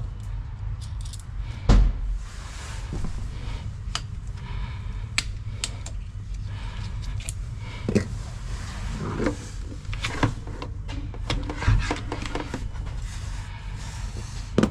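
Handling noise from connecting battery cables by hand: irregular clicks, clanks and rustles of metal cable terminals, tools and a plastic bag, with a sharp knock about two seconds in and a few more later, over a steady low rumble.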